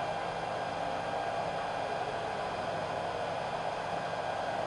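Hot-air blower of a BK200S BGA rework station blowing steadily through the nozzle onto the chip during a heating cycle: an even airy rush with a faint low hum.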